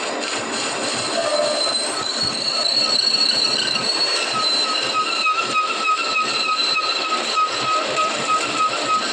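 Metal-cutting machine tool running, with a steady high-pitched squeal over a noisy hiss; the squeal settles onto a fixed pitch and grows stronger about halfway through.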